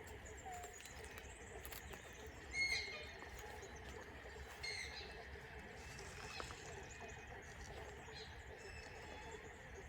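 Wild birds calling, a few short separate calls over a quiet steady background, the loudest about two and a half seconds in and another near five seconds in.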